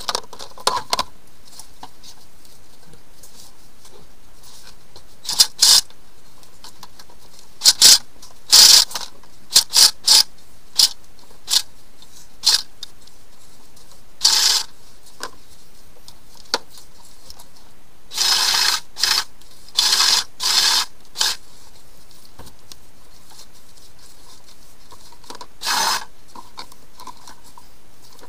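Irregular short scraping and rustling sounds from gloved hands handling a drain-cleaning cable and plastic drain hoses under a sink, with a louder cluster of scrapes about two-thirds of the way through.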